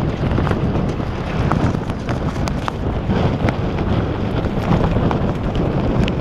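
Strong wind near a tornado buffeting the microphone: a dense, gusting low rumble with scattered sharp ticks throughout.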